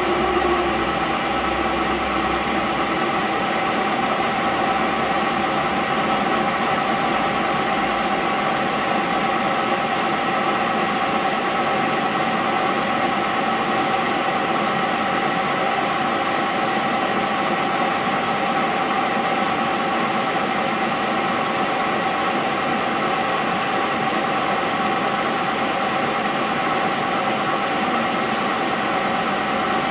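Mondial Gallic 16 metal lathe running steadily with a steel shaft spinning in the chuck: an even machine whine with several held tones over a steady rushing noise.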